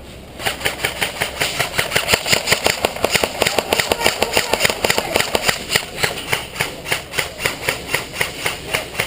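Airsoft gun firing on full auto: a long, steady, rapid stream of shots with a very high rate of fire, starting just after the start.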